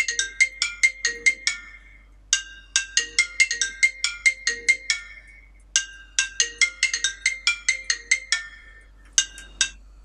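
iPhone ringing for an incoming call: a ringtone melody of quick struck notes, its phrase repeating about every three seconds, cutting off mid-phrase near the end as the call is ended. The call comes from the door alarm's GSM module, the sign that the door sensor has been triggered.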